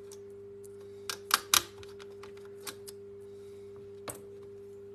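Sharp clicks and taps of a plastic laptop lid shell and its parts being handled: a quick cluster of three about a second in, then single clicks later, over a steady low hum.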